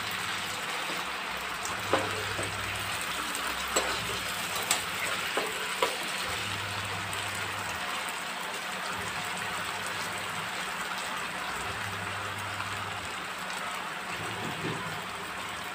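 Cubed potatoes shallow-frying in hot oil in a pan, a steady sizzle. A few clinks of a metal spoon against the pan in the first six seconds as the potatoes are stirred.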